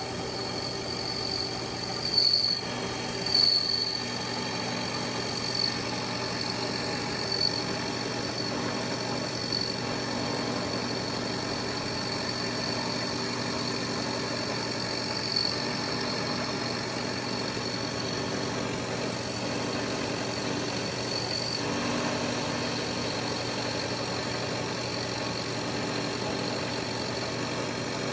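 Metal milling machine running steadily: a low motor hum with a thin high whine above it, and a handful of sharp clicks in the first few seconds.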